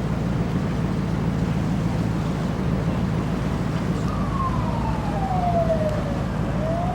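A siren wailing over a steady low engine rumble. About halfway through, its pitch slides down slowly and then starts climbing again near the end.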